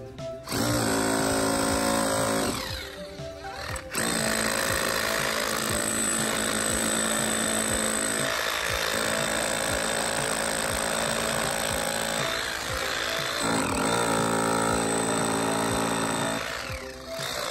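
Concrete poker vibrator running steadily with its head in freshly poured concrete in the stair formwork, consolidating it. The noise eases briefly about three seconds in and again near the end, as the poker is moved.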